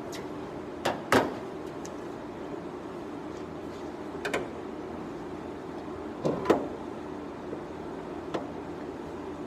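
Scattered metal knocks and clunks as a Dodge Charger's brake master cylinder is worked loose from the firewall: two loud ones about a second in, another near the middle, and a pair of the loudest clunks later on. A steady hum sounds underneath.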